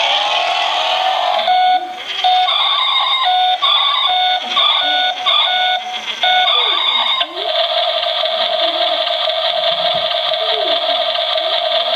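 Battery-powered toy truck's electronic sound effects from a small speaker: a beeping, alarm-like run of short repeated tones for about seven seconds, then a steady buzzing engine-like sound.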